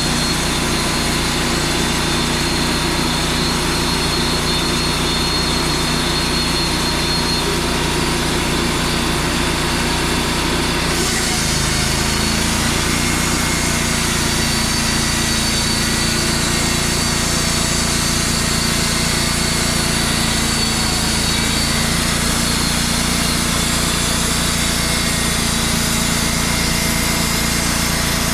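Wood-Mizer LT35 portable band sawmill running steadily, its engine droning with a steady hum; the sound shifts slightly about eleven seconds in.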